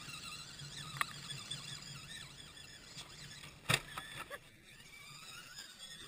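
Electric drive motors and gearboxes of radio-controlled rock crawler trucks whining, the pitch wavering up and down with the throttle as they climb. A sharp knock comes about a second in and a louder one a little past the middle.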